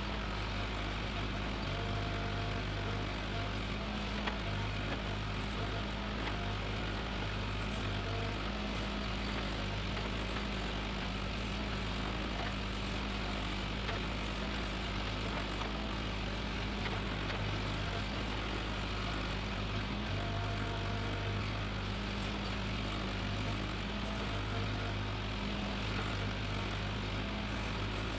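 Heavy diesel engine of an excavator running steadily. Its deep hum swells and eases every few seconds as it works under varying load.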